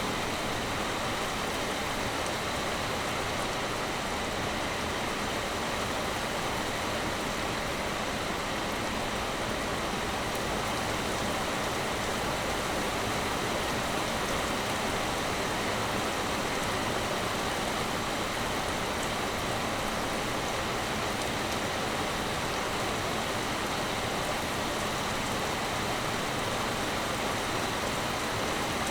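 Heavy rain pouring steadily, a dense even hiss of drops with no break or change.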